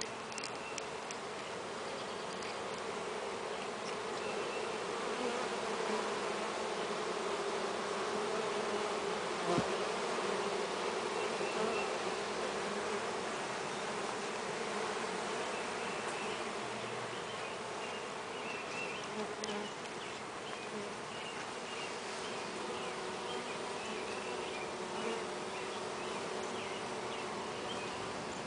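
Honeybees from a freshly installed package colony buzzing in a steady hum around the entrance of a plastic-barrel top bar hive.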